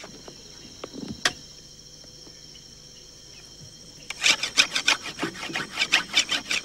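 Steady high insect chirring with a few faint clicks. From about four seconds in comes a rapid, irregular run of loud clicks and scrapes.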